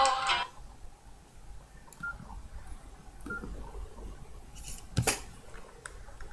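Nokia N72 mobile phone: a ringtone cuts off at the start, then two short keypad beeps about a second and a half apart, and a sharp click about five seconds in.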